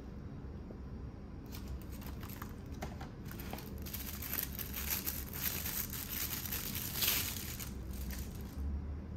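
Thin plastic packaging crinkling as a clear magnetic phone case is unwrapped from its sleeve by hand. It starts about a second and a half in, grows louder, and stops shortly before the end.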